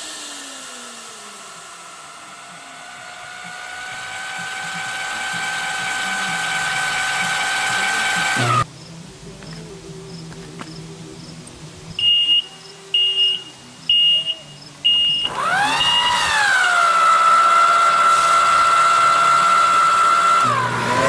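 Turbocharger-based homemade gas turbine running with a high whine from its compressor and turbine wheels. The whine first falls, then rises again and cuts off suddenly. After a quieter stretch with four short high beeps, the whine sweeps up sharply and holds steady at a high pitch, then dips near the end.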